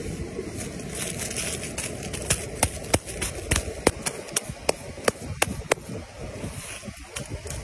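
Hands slapping and pressing wet clay, with many irregular sharp pats over a steady background rush.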